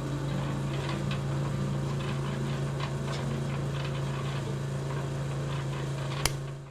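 A small electric motor, such as that of a toy mini truck, running steadily with a constant low hum and faint scattered clicks. A sharp click comes near the end, then the hum fades out.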